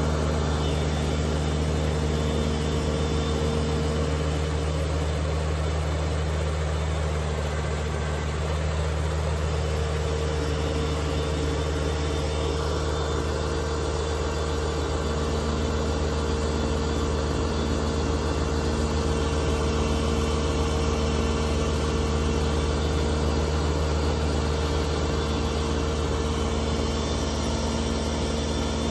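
Kubota BX2380 compact tractor's three-cylinder diesel engine running steadily under load, driving the front-mounted BX2816 snowblower as it throws snow.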